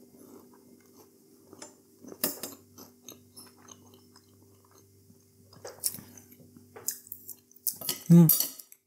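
Quiet chewing, with a few sharp clinks of a metal knife and fork against a plate over a faint steady hum. A short louder sound about eight seconds in.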